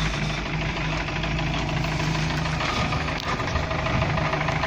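UAZ's UMZ-417 four-cylinder petrol engine running steadily with a persistent knock that new camshaft gear and camshaft have not cured. Oil pressure is good; the engine runs like a diesel.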